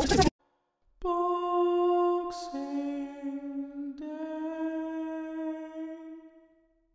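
Slow, unaccompanied singing: a few long held notes, the first two joined by a brief hiss like an 's', the last fading out near the end. It comes after a sudden cut-off and a short silence.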